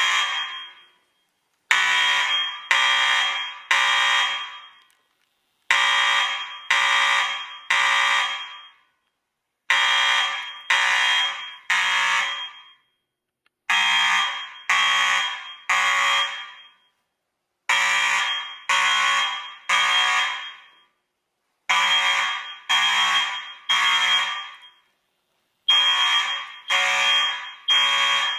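Fire alarm sounding the temporal-three evacuation pattern after a break-glass pull station has been pulled: three loud, buzzy blasts of about a second each, then a pause, repeating every four seconds.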